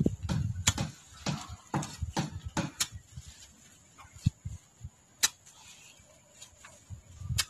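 A long-handled digging tool chopping and scraping into the soil along a garden-bed edge, with sharp knocks about three times a second for the first three seconds, then a few single knocks.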